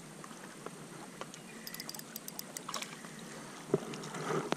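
Faint, steady lapping of lake water, with scattered light ticks from the rod, reel and line as a small sunfish is pulled from the water. A single sharp knock comes near the end.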